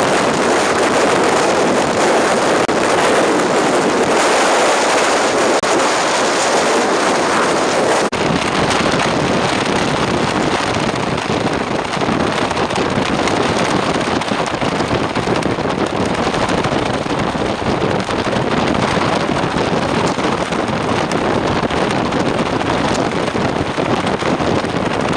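Storm-force wind blasting against the microphone: a loud, continuous rush of noise that takes on a deeper rumble about eight seconds in.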